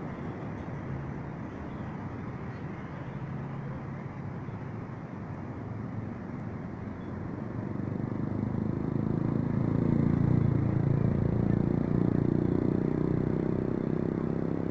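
A motor vehicle's engine running with a steady low hum, growing louder from about eight seconds in and easing off near the end.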